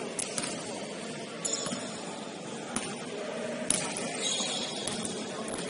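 Basketball game sounds on a gym court: a few short, high-pitched sneaker squeaks and scattered sharp knocks over a steady murmur from the hall.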